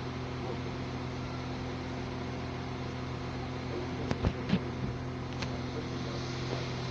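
CAF-built NI Railways Class 4000 diesel multiple unit idling with a steady engine hum. A few sharp knocks come about four seconds in.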